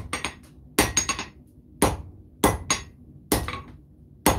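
Hand hammer forging a red-hot 1095 high-carbon steel knife blade on an anvil: about six heavy blows spaced a little under a second apart, each followed by one or two lighter taps.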